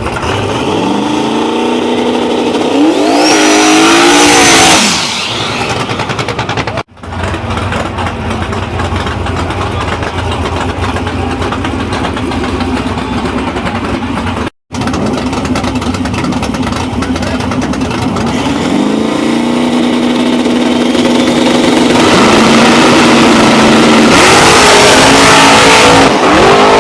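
Race car engines at full throttle, rising in pitch as the cars accelerate hard down the strip, then dropping off. A second long run climbs steadily and gets louder near the end.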